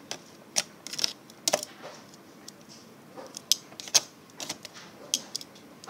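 Irregular sharp clicks and light taps, a dozen or so at uneven intervals, from hands handling a clear plastic food container beside a wooden cutting board.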